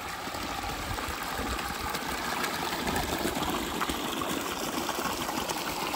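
Pumped water gushing steadily and with strong force from an irrigation pipe outlet into a concrete tank. The strong flow comes from the newly replaced pipes and foot valve.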